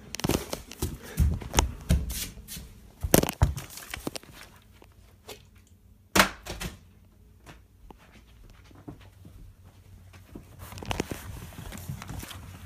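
A series of separate knocks and thumps, several in the first few seconds and a sharp one about six seconds in, then quieter small rustling noises.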